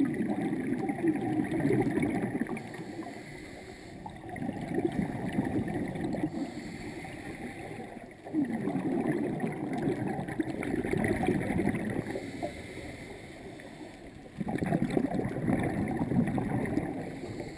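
Scuba diver's exhaled regulator bubbles gurgling and rumbling past a GoPro in its underwater housing, in four bursts of a few seconds each, with short quieter pauses between breaths.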